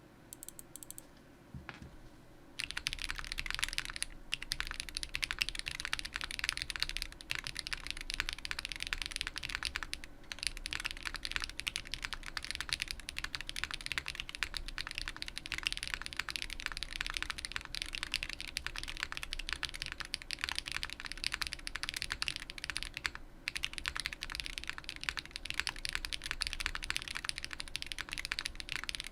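Mr. Suit mechanical keyboard with lubed and filmed Zaku switches, a POM plate and GMK keycaps, typed on quickly and continuously, starting about two and a half seconds in. The dense run of key clicks breaks off briefly a few times.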